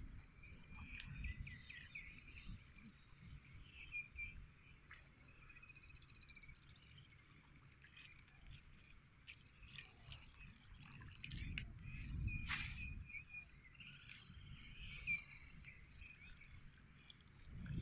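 Faint wetland ambience: small animals, birds and frogs, chirping and trilling, over a low rumble of wind on the microphone, with a sharp click about twelve seconds in.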